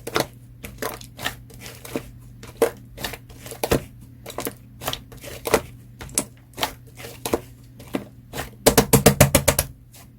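Slime being pressed and poked by fingers: a coil of purple slime on melted clear slime gives sticky clicking pops about twice a second, then a quick run of about ten sharper clicks near the end.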